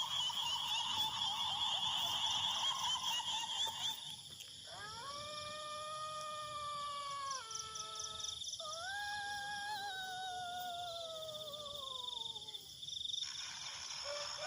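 A dense, high-pitched chirring for the first few seconds, then a long, wavering, high wailing cry, broken off and followed by a second, longer wail that slowly falls in pitch: a pontianak's shrieking wail as a horror sound effect.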